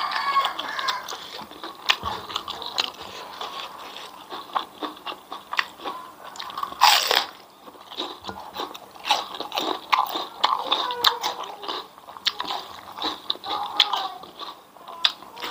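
Close-miked chewing of crunchy fried grasshoppers: many sharp crunches, with one louder, longer crunch about seven seconds in.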